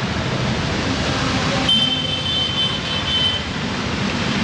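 Heavy rain pouring down over a flooded road, with motor traffic driving through the water and engines running underneath. A thin high-pitched tone sounds for about two seconds in the middle.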